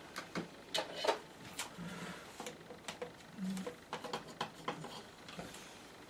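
Scattered light clicks and taps, irregular and closely spaced, from a card mount and painting board being handled.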